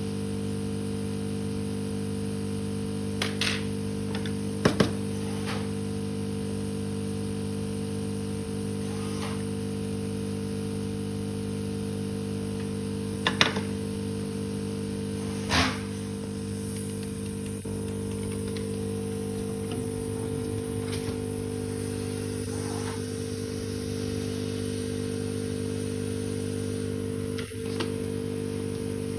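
Steady electrical hum on an electronics repair bench, with a few short sharp clicks and taps, about four in all, as tools are handled.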